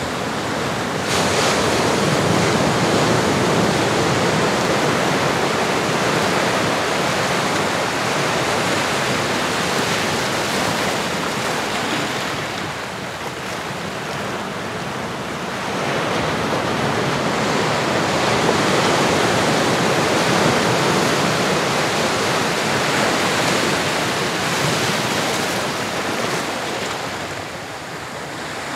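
Ocean surf: waves washing in and drawing back. It swells about a second in and again around sixteen seconds, easing off in between.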